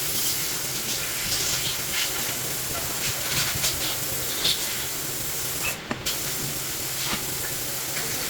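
Steady hissing noise with scattered light clicks and taps; the hiss cuts out briefly just under six seconds in, then resumes.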